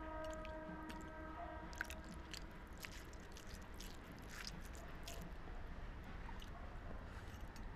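Close-up chewing, with irregular small clicks of the mouth, over a low steady hum. A held horn tone fades out in the first second and a half.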